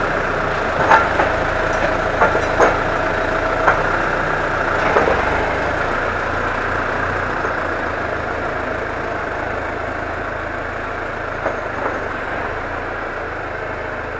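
New Holland tractor's diesel engine running as the tractor backs away, slowly fading. A handful of sharp metal clanks come in the first four seconds and two more later on, from the loader and pallet forks.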